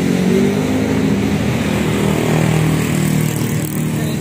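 Steady engine noise of road traffic running close by, with a low hum that shifts slightly in pitch.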